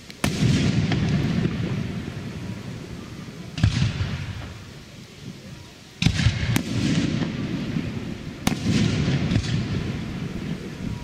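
Aerial firework shells bursting: about five sharp booms, each followed by a long rolling rumble of echo, two of them close together just past the middle.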